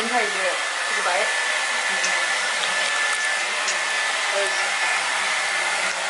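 Hair dryer running steadily: a constant rushing hiss with a thin, steady whine.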